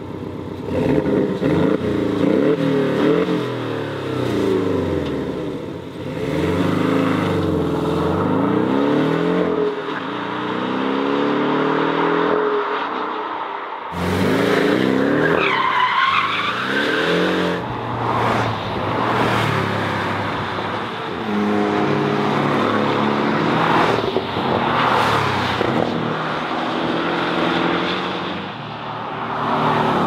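Porsche 718 Cayman's turbocharged flat-four engine revved up and down repeatedly through its sport exhaust at standstill. About halfway through, the sound changes to the car accelerating hard with gear changes and a brief tyre squeal.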